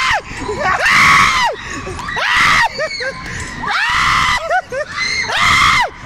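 Riders screaming on a fast-spinning amusement ride: loud screams about every second and a half, with shorter cries between them.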